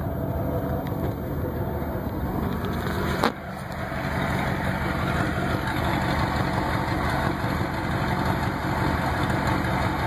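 Pickup truck engine idling steadily through a straight-piped 2.5-inch exhaust with no muffler. A single sharp knock about three seconds in.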